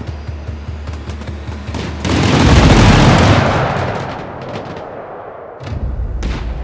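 Fireworks going off: rapid sharp bangs, then a much louder, longer burst about two seconds in that fades over a couple of seconds, and a few more sharp reports near the end.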